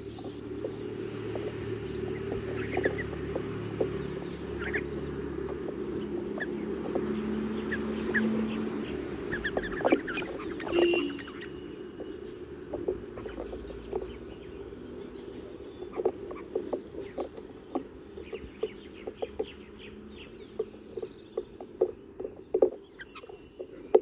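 Bulbuls feeding on a stone ledge: a scatter of sharp taps as they peck at crumbs, with short chirping calls now and then.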